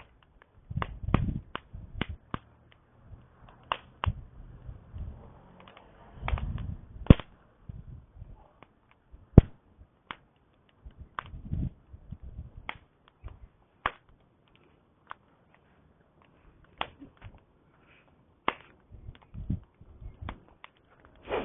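Campfire crackling: irregular sharp pops and snaps of burning wood, some much louder than others, with low rumbles now and then.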